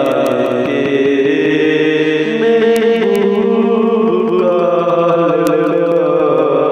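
Chanted vocal music: a voice sings long, held, wavering notes in a slow melodic line, with the notes overlapping one another.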